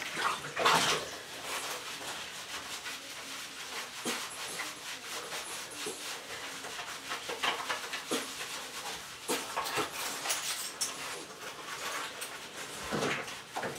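Bathwater sloshing and splashing in a tub as a miniature schnauzer is scrubbed by hand, with a run of small irregular splashes and knocks; the loudest splash comes about a second in.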